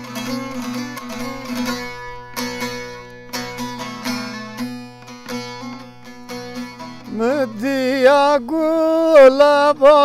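Bağlama (long-necked saz) playing a plucked folk melody over a steady drone note. About seven seconds in, a man's voice comes in singing long, wavering, ornamented notes over the saz, louder than the instrument.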